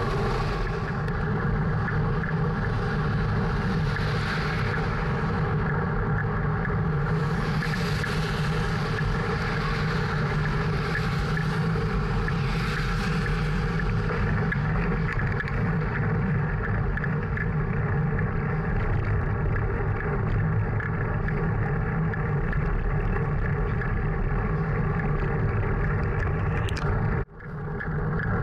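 Steady drone of wind and road noise on a bicycle-mounted action camera while riding along a highway shoulder. Oncoming traffic, a semi-trailer truck and then cars, swishes past in several waves during the first half. The sound drops out abruptly for a moment near the end.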